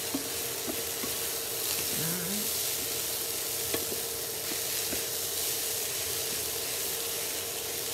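Cauliflower rice and diced vegetables sizzling in a nonstick frying pan as they are stirred and tossed with wooden utensils, with light scattered taps of wood on the pan. A faint steady hum runs underneath.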